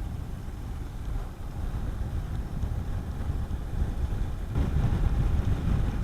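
Wind rushing over the microphone of a rider on a Honda CB400SS single-cylinder motorcycle, with the bike's road noise underneath. It is a dense low rumble that grows louder about four and a half seconds in.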